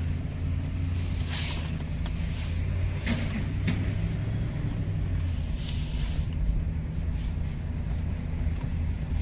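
Car engine and road noise heard from inside the cabin while driving slowly: a steady low hum, with several brief hissy swishes along the way.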